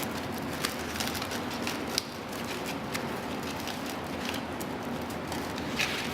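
Sandpaper loadings rustling and clicking against the slotted metal casting of a flap sanding head as they are wiggled down into their slots, with scattered sharp ticks, the loudest about two seconds in.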